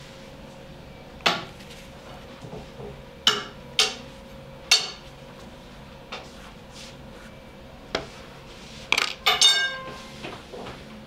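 Metal bakery utensils and pans clattering: a series of separate sharp knocks and clinks, with a quick cluster near the end where one piece rings briefly. A steady faint hum runs underneath.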